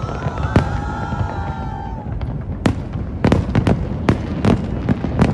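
Fireworks display: several whistling tones over a steady low rumble for the first two seconds, then a quick string of sharp bangs from shells bursting, several a second, toward the end.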